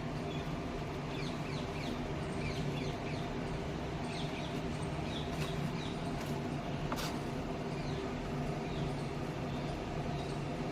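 Birds chirping in the background over a steady low hum, with a single sharp click about seven seconds in.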